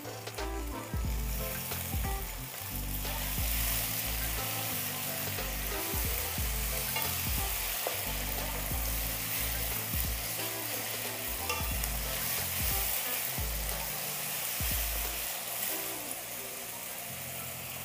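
Chopped tomatoes and onions sizzling in hot oil in a kadhai, stirred and scraped with a wooden spatula. The sizzle grows louder about three seconds in.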